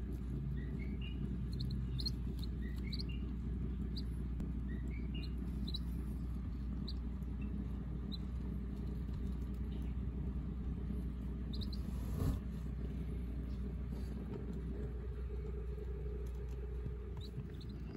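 Muscovy ducklings peeping softly: faint, short, rising peeps, several quick runs of three in the first few seconds, then scattered single peeps, over a steady low hum. A single brief knock comes about two-thirds of the way through.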